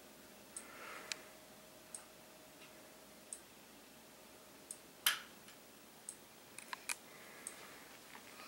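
Simplex 4903-9101 fire alarm strobe flashing, each flash giving a faint high tick about every second and a half, over a faint steady hum. A louder sharp click about five seconds in and a few small clicks near seven seconds stand out above the ticking.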